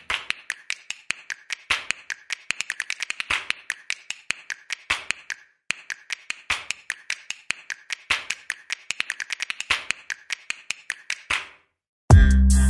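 A long run of sharp, irregular clicks, some coming in quick clusters, stopping about eleven seconds in. After a short silence, electronic music with a heavy bass beat starts near the end.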